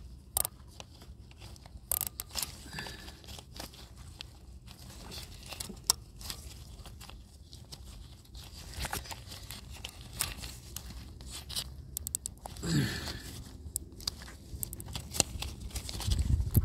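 Close hand work on a broken fuel injector connector: scattered clicks, taps and short rustling or tearing sounds as it is wrapped and locked in place, with a quick run of rapid clicks about two-thirds of the way through.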